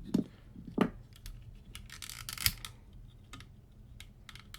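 Hard plastic toy parts clicking and snapping as a transforming action figure is handled, a few sharp clicks with a short scrape about two seconds in.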